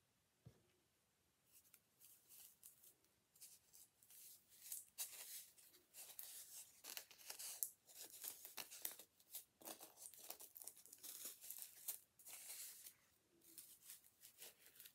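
Faint, irregular rustling and scratching of Lycra fabric being stretched and worked over a styrofoam egg by hand, starting about a second and a half in.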